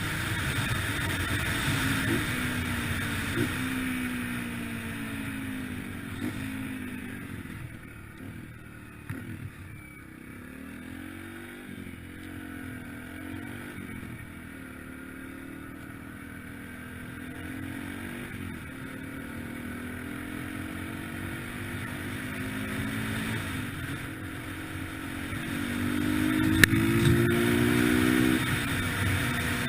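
A 2003 Yamaha TT-R125LE dirt bike's single-cylinder four-stroke engine revs up and drops back repeatedly as it is ridden through the gears. It settles lower and quieter around the middle, then revs up again near the end.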